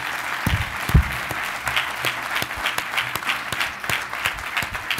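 Audience applauding, many hands clapping steadily. Two low thumps come about half a second and a second in.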